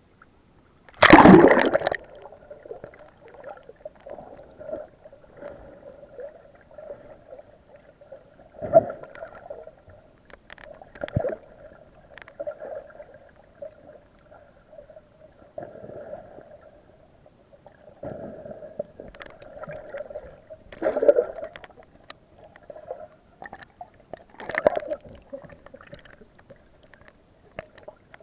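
Water gurgling and sloshing close to the microphone, with a loud splash about a second in and several smaller splashes later. A faint steady hum runs underneath.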